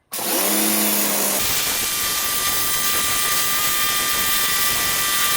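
Sun Joe SPX2004 electric pressure washer starting abruptly as the trigger is pulled, then running steadily: the motor and pump whine under the loud hiss of the narrow, high-pressure water jet spraying on the deck.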